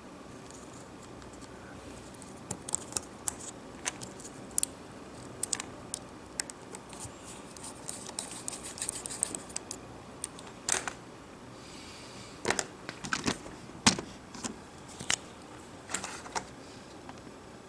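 Irregular small metallic clicks and scratches of tweezers and a screwdriver against an iPhone 6 Plus's aluminium frame and its tiny screws. The clicks are unevenly spaced, with a louder cluster in the second half.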